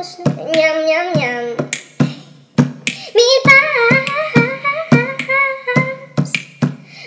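Song with a high-pitched singing voice over a steady clicking beat of about two to three strikes a second. The voice holds long, wavering notes with a few pitch glides, and no clear words.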